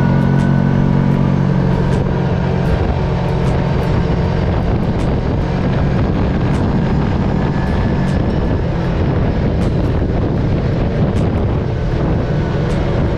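Side-by-side UTV engine running steadily while riding, a loud low drone with scattered sharp clicks over it.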